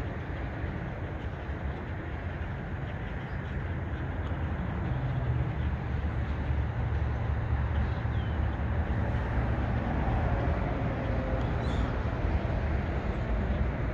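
Steady low outdoor rumble, growing louder about five seconds in, with a couple of faint high chirps in the second half.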